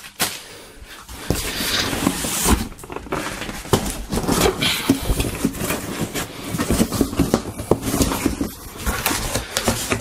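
Cardboard scraping and rustling, with many small knocks, as a boxed power tool is handled, slid out of a shipping carton and its box opened. It starts about a second in.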